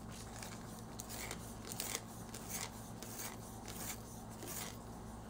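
Oil-based colored pencil being turned in a manual pencil sharpener: faint, repeated scraping strokes as the blade shaves the wood and lead.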